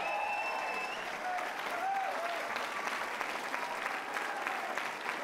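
Audience applauding and cheering, with a shrill whistle in the first second.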